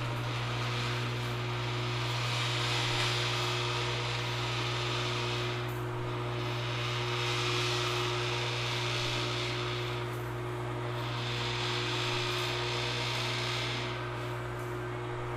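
Auxx-Lift garage storage lift's electric winch motors running as the platform is lowered toward the floor: a steady low hum with a hiss that swells and dips about every four seconds. The motors start abruptly and keep running, since the floor limit switch is not stopping the lift.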